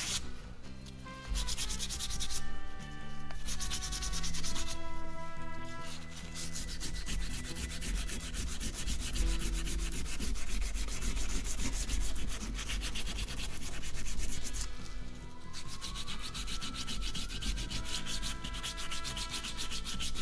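Sandpaper rubbed by hand over the crown of a forged aluminium piston to clean deposits off it: a continuous scratchy sanding.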